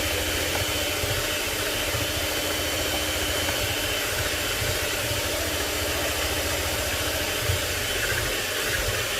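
Electric mixer running steadily, beating a cake batter of eggs, sugar and oil.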